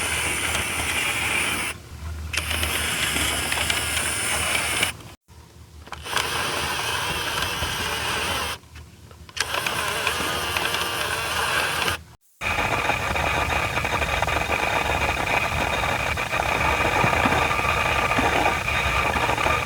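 Panasonic Lumix FZ82 bridge camera's lens mechanism whirring and grinding as it zooms, in four runs of about three seconds each with short pauses between, then one longer run of about seven seconds with a steadier whine. This loud noise is normal for a working camera, not a sign of a fault.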